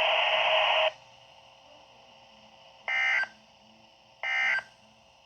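A loud rush of radio static cuts off about a second in. Then come two short digital data bursts from NOAA Weather Radio, a little over a second apart: the SAME end-of-message code that closes the weekly test.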